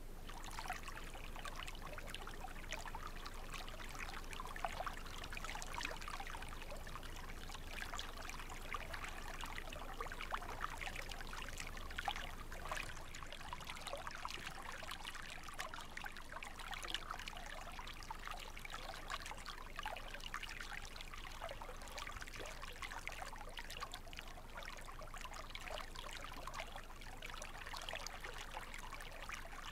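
A shallow stream running and trickling steadily, with a constant patter of small gurgles.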